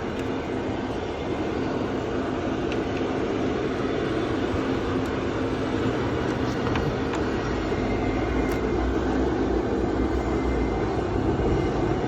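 A steady mechanical drone, with a low rumble growing stronger about two-thirds of the way through and a few faint light clicks.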